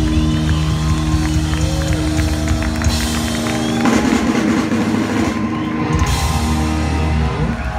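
Thrash metal band playing live in a hall: electric guitars holding chords over drums, with a heavier crash of drums and cymbals about four seconds in as the song's ending builds. The music stops right at the end.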